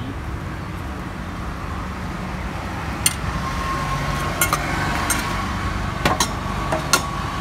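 Steady low rumble of road traffic, with a few sharp clinks of stainless-steel tins and utensils being handled on a steel counter.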